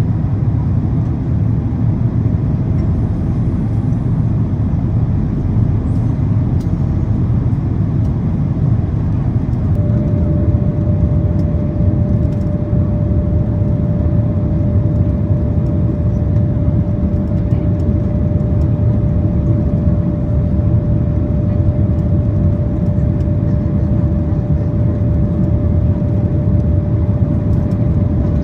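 Steady cabin roar of a Boeing 767-400ER airliner on final approach: engine and rushing-air noise, with a steady tone that joins about ten seconds in and holds.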